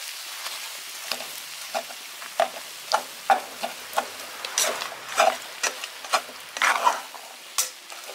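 Stir-fry sizzling in a hot granite-coated wok while a spatula turns it. Irregular scrapes and knocks of the spatula against the pan sound over the steady sizzle, coming thicker in the second half.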